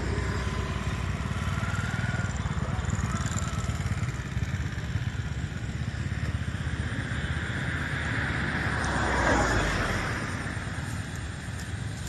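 Motor vehicle passing, over a steady low rumble. It swells to its loudest about nine seconds in, then fades.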